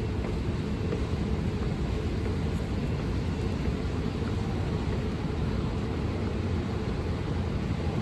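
Steady low rumble of an Elizabeth line train running through the tunnel, an even noise with no distinct knocks or changes.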